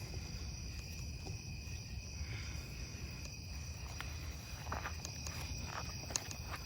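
Night insects chorusing, a steady high-pitched trill at two pitches, over a low rumble on the microphone, with a few faint clicks in the second half.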